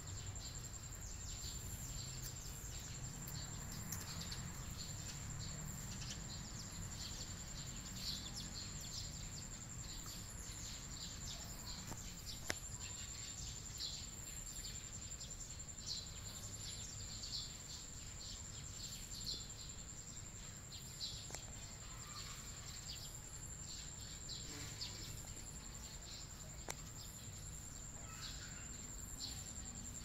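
Outdoor garden ambience: a steady high-pitched insect drone, with short bird chirps scattered throughout over a low background rumble.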